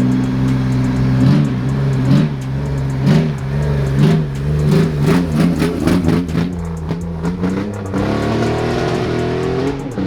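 Chevrolet Camaro engine idling, then revved in a run of quick blips. It then pulls away with a long rising pitch that drops suddenly near the end as it shifts up.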